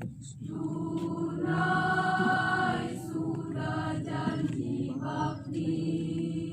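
Choir singing slow, sustained phrases in several parts, a steady lower voice held under swelling upper lines.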